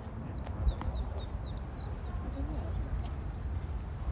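A small bird chirping in a quick run of short, high, downward-hooked notes, several a second, thinning out near the end, over a steady low rumble.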